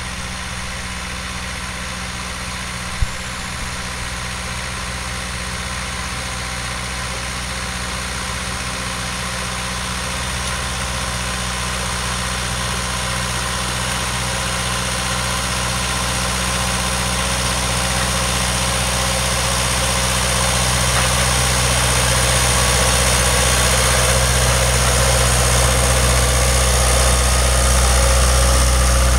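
Farm tractor's diesel engine running at a steady speed, growing gradually louder as it draws near while driving a side-mounted Weed Badger rotary weeder through the soil. A single sharp tap sounds about three seconds in.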